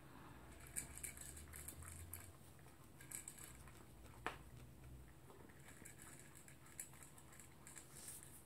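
A small dog eating dry kibble from a slow-feeder bowl: faint, scattered clicks and crunches of food and muzzle against the bowl, with one sharper click about four seconds in.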